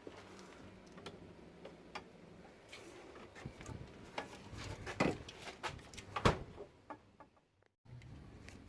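Scattered light clicks and knocks of metal tools being handled at a workbench, with two louder knocks about five and six seconds in.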